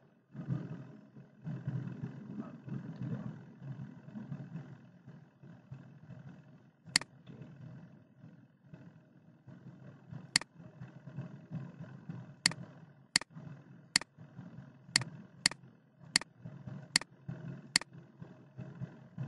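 A computer mouse clicking about ten times in sharp single clicks: once about seven seconds in, then a run from about ten seconds on, roughly one a second or faster. The clicks are the pointer selecting image squares and buttons on a reCAPTCHA puzzle. A steady low rumble runs underneath.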